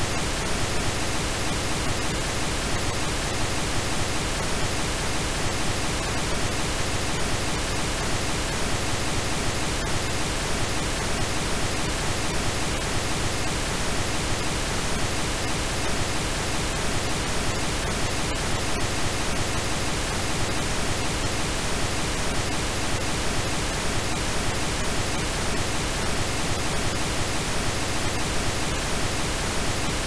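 Steady pink noise: an even, unchanging hiss spread across all pitches.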